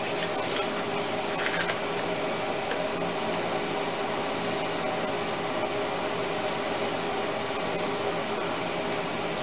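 Steady background hiss and hum, with a few faint clicks about half a second and a second and a half in as spark plugs are threaded by hand into the engine's cylinder head.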